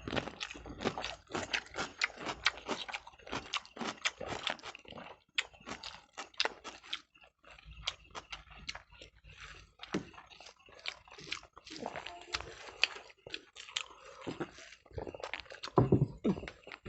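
People chewing mouthfuls of rice with egg curry eaten by hand: a quick, irregular run of short clicking mouth sounds. A brief louder vocal sound comes near the end.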